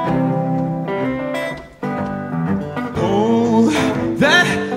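Instrumental music played live by an electric guitar and a string quartet: sustained bowed string chords with guitar, a short drop in level about two seconds in, then a melody with vibrato rising over the accompaniment.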